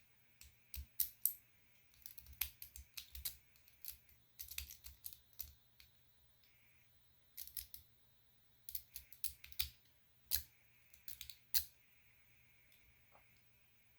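A metal rake pick scraping in and out of a small TSA luggage lock's keyway: rapid runs of sharp metallic clicks in bursts of about a second, with short pauses between, as the lock is raked open.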